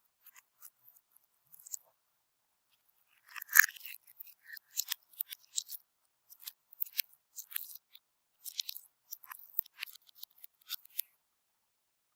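Crunchy slime being squeezed and worked by hand: irregular sharp crackles and clicks, with a louder burst about three and a half seconds in and a short lull before it.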